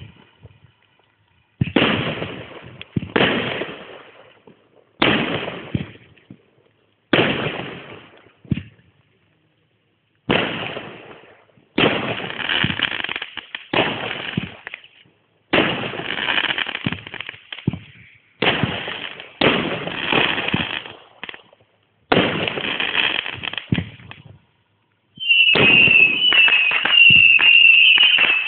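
Fireworks display: aerial shells bursting one after another, about one every second or two, each bang fading out in a short crackling tail. About 25 seconds in, a louder unbroken barrage begins, dense crackling with a high wavering whistle over it.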